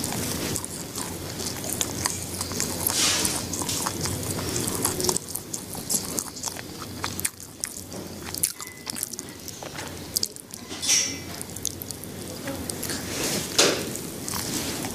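A person biting into and chewing food close to the microphone: many small mouth clicks, with a louder bite about three seconds in and another near the end.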